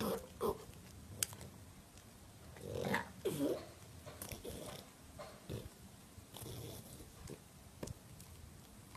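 A French bulldog eating a peeled banana: wet chewing, biting and lip-smacking sounds in irregular bursts, the loudest about three seconds in.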